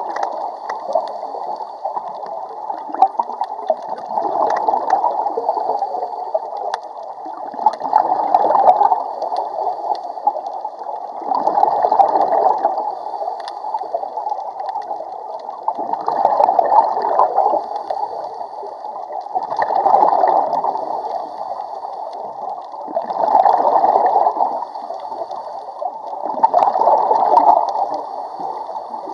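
Scuba diver breathing underwater through a regulator: a gurgling rush of exhaled bubbles swells up about every four seconds, over a steady bubbly background.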